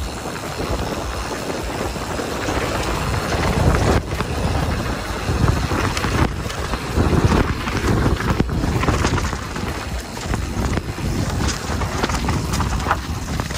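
Mountain bike ridden fast down a dirt forest trail: wind rushing over the camera microphone and tyres rolling on packed dirt, with sharp knocks and rattles as the bike hits bumps and roots.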